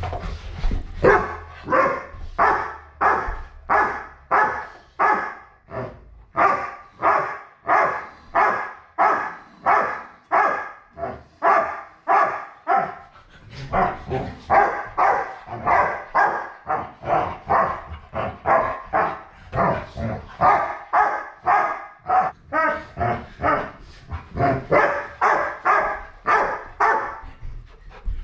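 A dog barking over and over, about two barks a second, in play while being wrestled with, pausing briefly twice.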